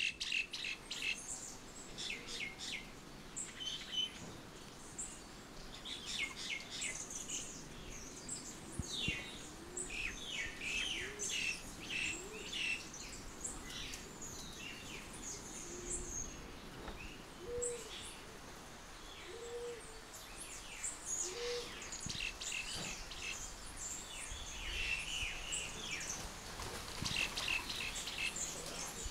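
Several birds chirping and calling in quick clusters of short, high notes, with a few short low notes about two seconds apart around the middle.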